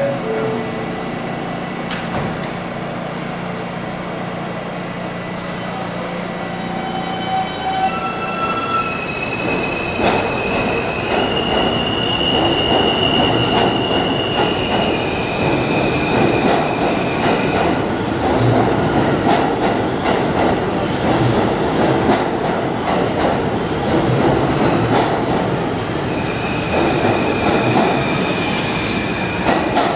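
An R160A-1 subway train with Alstom propulsion pulls out of an underground station. Its motors whine in steady tones that step up in pitch as it gathers speed, then the cars rumble and clatter past with some wheel squeal.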